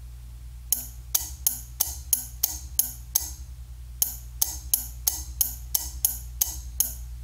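Kilovac vacuum high-voltage relay clicking as its contact snaps back and forth: a run of pretty loud, sharp clicks, about three a second, with a short pause near the middle.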